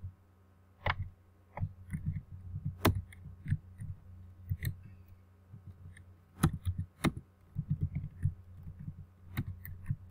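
Irregular taps and clicks of a computer keyboard and mouse while code is edited, with a few stronger clicks and soft low thumps, over a steady low hum.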